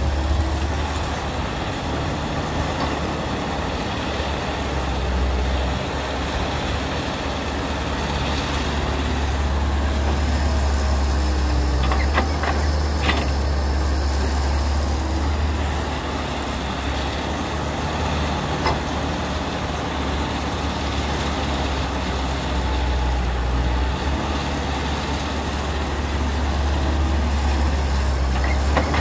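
Cat 312B hydraulic excavator's diesel engine running under load while it digs and dumps soil into a dump truck, its low hum swelling and easing through the work cycle. A few sharp knocks come about twelve seconds in.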